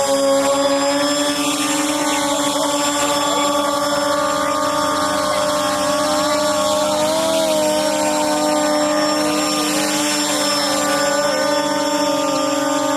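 The motors and lift fans of two radio-controlled model hovercraft running: a steady, high-pitched hum whose pitch wavers up and down as they are throttled.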